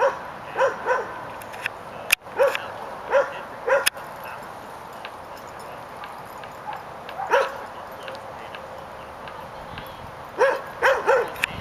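A dog barking, about ten short barks in quick groups of two or three, with a few seconds' pause between the groups.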